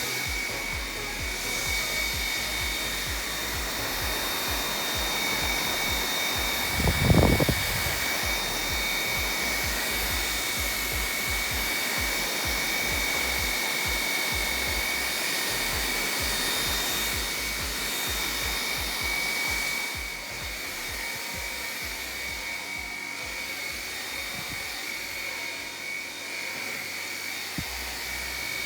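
Xiaomi Mi G10 handheld vacuum cleaner running steadily, its motor giving a high whine over a rushing air sound. There is a brief low thump about seven seconds in, and the sound drops a little in level about twenty seconds in.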